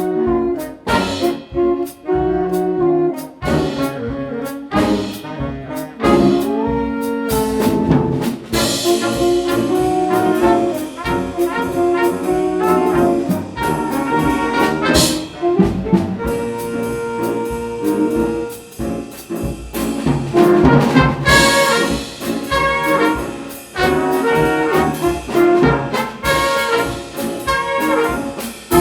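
School band playing, led by trumpets and trombones: short punchy brass stabs for the first several seconds, then fuller held chords.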